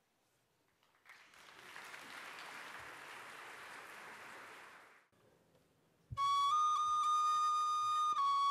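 Brief audience applause, then after a short pause a flute-like wind instrument enters on a held high note and moves to other notes near the end. This is the opening of a modern arrangement of Csángó folk music.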